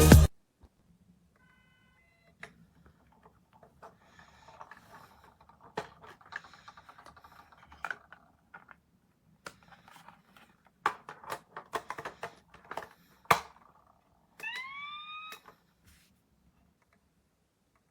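Scattered plastic clicks and knocks from a Playmobil City Action 9463 toy fire truck being handled. Near the end its electronic sound unit gives one short rising siren tone lasting about a second.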